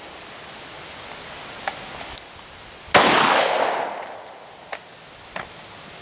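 A single pistol shot from a Glock 27 in .40 S&W about halfway through, ringing out and fading over about a second. A few light clicks of the pistol being handled come before and after it.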